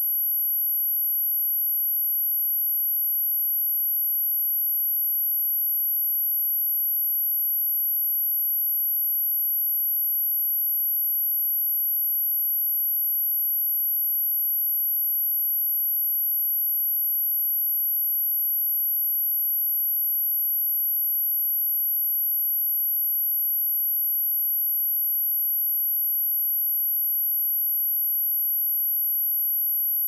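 A single steady, high-pitched 11,737 Hz sine test tone, held unchanged.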